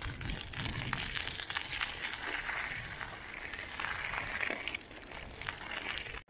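Folding bicycle's tyres rolling over a gravel path: a steady crunching crackle of stones under the wheels, which cuts off suddenly near the end.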